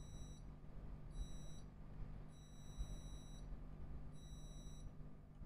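Multimeter continuity beeper giving a run of short, high-pitched beeps, about four, as its probes touch points on a MacBook Pro A1707 logic board. Each beep marks a near-zero-resistance path to ground, the sign of a short on the board's PP bus rail.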